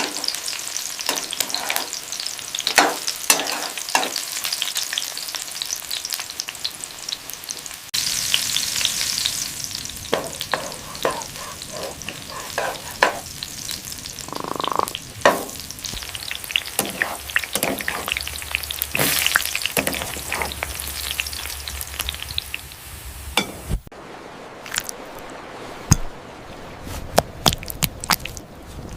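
Crab cakes frying in hot oil in a pan: a steady sizzle full of crackles and sharp pops, with scattered clicks and knocks. The sizzle jumps louder abruptly about eight seconds in and drops about twenty-four seconds in.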